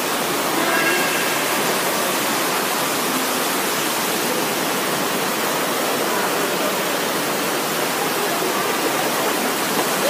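Indoor wall fountain running steadily: water pouring in sheets down the panels and splashing into the basin.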